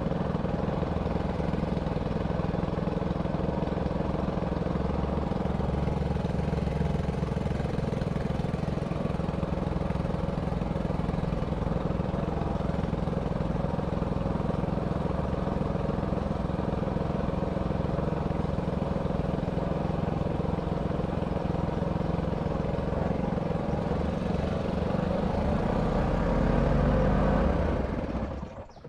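Small wooden boat's engine running steadily as the boat cruises, with a low rise shortly before it stops abruptly near the end.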